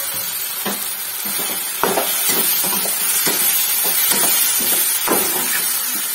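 Mushroom chilli sizzling in a wok while a metal slotted spatula stirs it, scraping and knocking against the pan at irregular moments.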